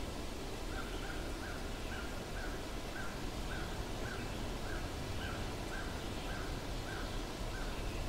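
Steady rush of a forest stream, with a bird repeating a short call about twice a second, starting about a second in.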